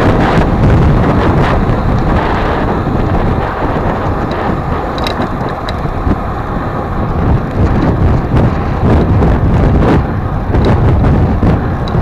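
Wind buffeting the microphone of a handlebar-mounted camera on a moving road bike, a loud, uneven rumble mixed with tyre noise on the paved lane. Scattered small clicks and rattles run through it.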